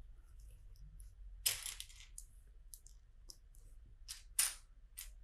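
Loose plastic LEGO bricks clicking and clattering as they are handled and picked through on a table: a handful of short, sharp clinks, the loudest about a second and a half in and several more near the end.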